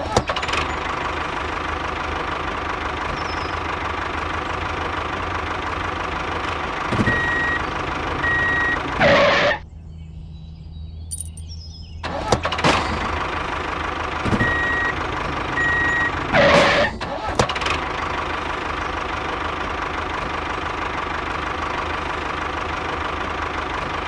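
Tractor engine running steadily, with two short high beeps heard twice, each pair followed by a brief loud surge; the engine sound drops away for about two seconds near the middle.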